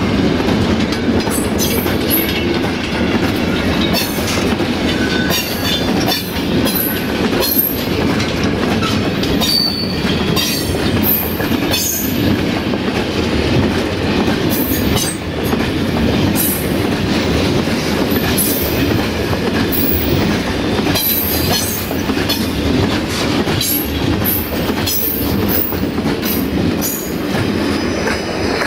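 Freight wagons of a long goods train rolling past close by: a steady heavy rumble of wheels on rail, broken by frequent sharp clacks and short high squeals from the wheels.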